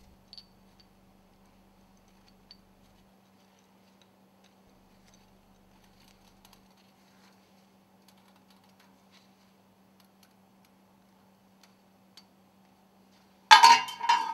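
Faint scattered ticks of small steel parts being handled over a steady low hum, as the garter spring is worked round the stuffing box sealing ring segments. Near the end comes a sudden louder metallic clatter lasting about a second.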